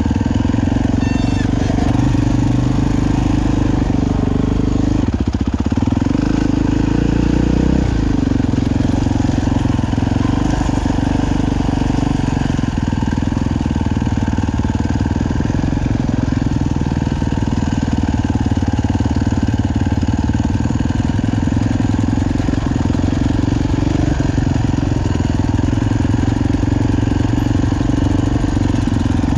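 Dirt bike engine running steadily, loud and low, while the bike rolls down a steep rocky trail, with the engines of the ATVs just ahead mixed in.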